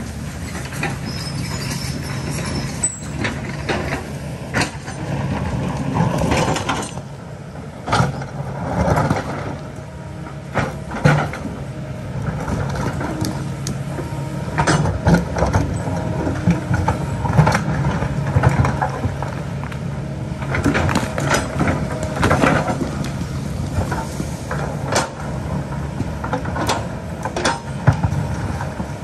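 Kobelco excavator's diesel engine running steadily under load, with irregular clanks and scrapes of the steel bucket working against rock.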